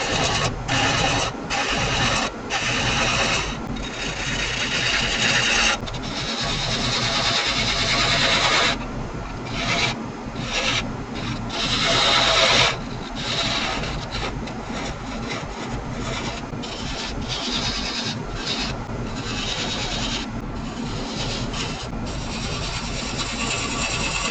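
Wood lathe running while a turning tool cuts the spinning wood in repeated passes. The cutting noise keeps stopping briefly and starting again as the tool leaves and meets the wood.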